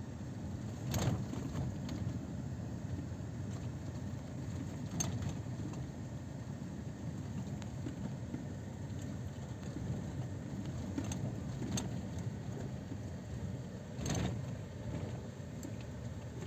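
Steady low rumble of a car's engine and tyres heard inside the moving cabin, with a handful of short sharp clicks, the loudest about a second in and near the end.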